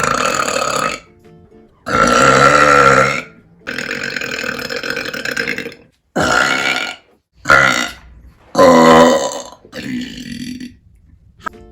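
A woman burping loudly, about seven burps in quick succession, each of a different length, one of them long and drawn out.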